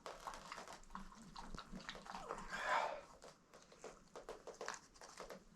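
Faint wet squelching and small clicks from hands and a knife working inside a gutted possum's chest cavity, with a slightly louder squish about two and a half seconds in.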